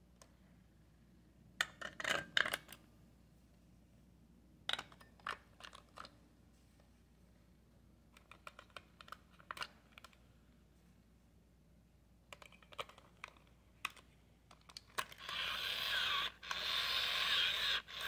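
Hard plastic clicks and snaps from the battery compartment and door of an original Tiger Electronics Furby as it is handled and shut, in several separate bursts. About fifteen seconds in, the Furby switches on and makes a continuous sound of its mechanism and voice.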